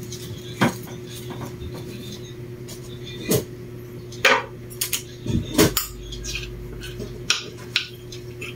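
Kitchen utensils clinking and knocking against dishes, a handful of separate clicks at uneven intervals, over a steady faint hum.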